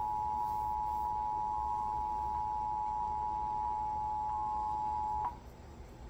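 Emergency Alert System two-tone attention signal (853 Hz and 960 Hz sounding together) played through a television speaker, held steady and cutting off suddenly about five seconds in. It is the alert tone that heads a broadcast EAS test.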